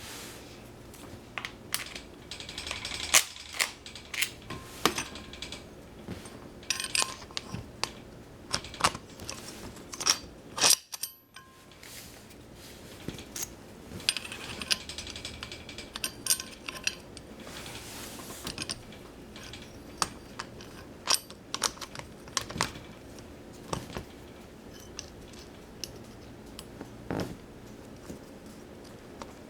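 Metal tools and parts clicking and clinking in irregular knocks while a wheelchair wheel is fitted, with a sudden brief drop-out about eleven seconds in.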